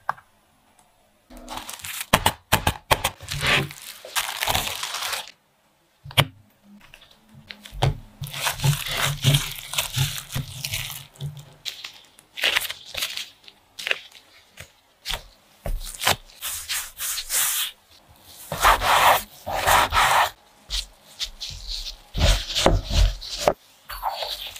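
Sticky glutinous rice dough being pulled, stretched and worked by hands in disposable plastic gloves: repeated bursts of tearing, rubbing and crinkling, with short pauses between.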